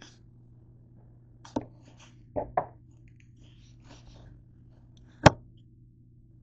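A few short knocks and taps from hands handling things on a kitchen counter, over a steady low hum. Two come close together about two and a half seconds in, and a sharper, louder one comes about five seconds in.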